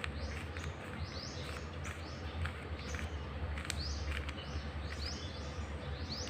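A bird chirping over and over, in short rising chirps about two a second, over a steady low hum.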